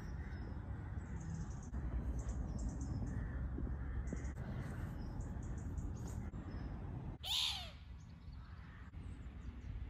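Birds chirping faintly over a steady low rumble, with one louder bird call about seven seconds in that falls in pitch.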